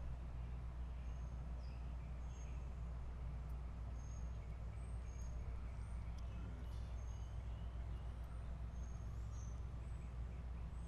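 Birds chirping in short high notes scattered through, over a steady low rumble.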